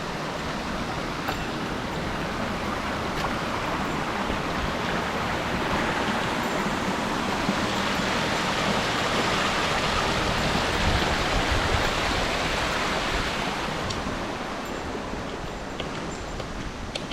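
Rushing water of a mountain stream, a steady roar that swells louder through the middle and eases off again near the end.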